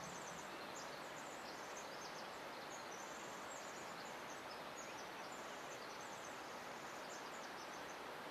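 Small birds chirping in quick, high trills over a steady rushing hiss of outdoor ambience.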